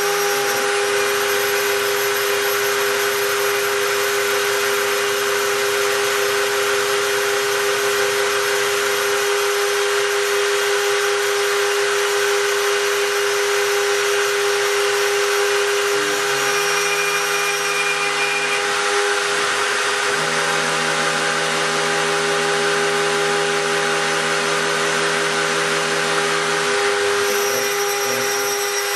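Spindle of a home-built CNC gantry milling machine running with a steady whine while engraving brass, with lower motor tones shifting a few times as the machine's axes move.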